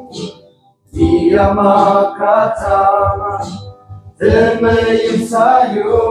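A group of men singing a hymn together in unison without accompaniment, in sung phrases with a brief pause for breath about a second in and another shorter dip near the middle.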